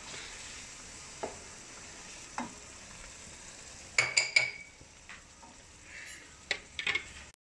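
Spinach and potato curry sizzling in a kadai while a spoon stirs and scrapes the pan. About four seconds in come a few sharp metallic clinks, after which the sizzle is quieter.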